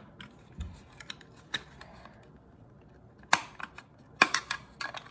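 Small plastic clicks and knocks of a Ringside Collectibles action-figure table being handled and worked apart, with a sharper click about three seconds in and a quick run of clicks near the end.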